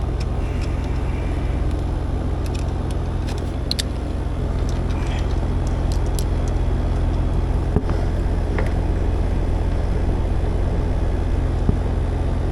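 Air-conditioning system running with a steady low drone, with a few light clicks.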